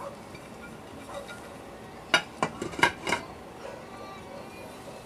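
A plate knocking and clinking against the rim of a stainless-steel skillet as it is set upside down over the pan for a lid: a quick cluster of several sharp knocks about two seconds in.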